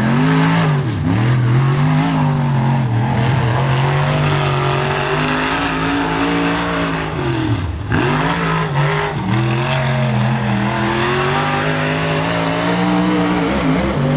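A Limited Late Model dirt race car's V8 engine running hard around the track. The engine note dips sharply and climbs again as the driver lifts for the turns and gets back on the throttle. The deepest dips come twice, about eight seconds apart, with smaller ones in between.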